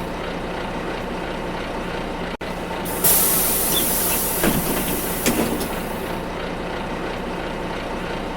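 City bus pneumatic door opening over the bus's steady running hum: a sudden loud hiss of released air about three seconds in that fades over the next few seconds, with two knocks from the door mechanism as it moves.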